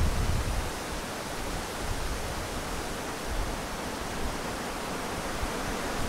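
Strong wind blowing through leafy tree branches, a steady rush and rustle of leaves. It is gustier at the start, with a low rumble that eases about a second in.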